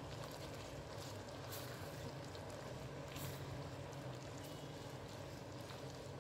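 Silicone spatula stirring sugar-coated young coconut strips in syrup in a nonstick pan: soft wet sliding and squelching strokes, a few a little louder, over a steady low hum.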